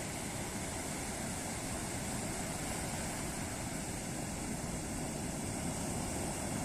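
Ocean surf washing onto the beach, a steady, even rush with no single break standing out.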